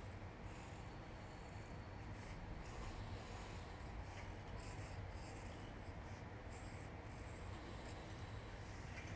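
Pencil scratching faintly on sketchbook paper in short drawing strokes, over a low steady hum.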